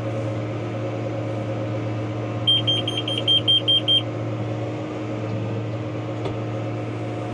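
Tractor engine running steadily under load, heard from the cab. About two and a half seconds in, a quick run of about eight short high beeps from the McHale round baler's in-cab control box, an alert as the bale is finished and the net wrap begins.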